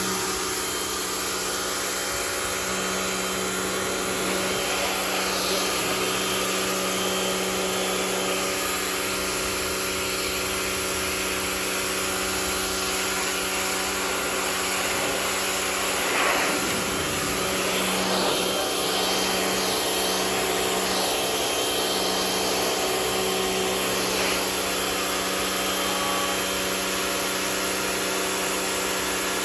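Rock&Rocker HWY12 pressure washer running steadily: the electric pump's hum under the hiss of a high-pressure water jet spraying onto a concrete patio.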